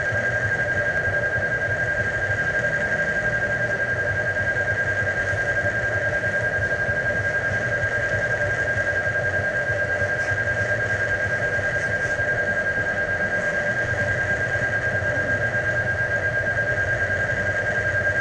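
Steady mechanical or electronic drone: a continuous high whine over a low, quickly pulsing hum.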